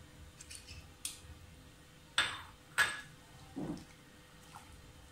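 Spatula knocking twice against the metal pot, a little over half a second apart, then a duller knock, with light clinks of stirring milk and rice.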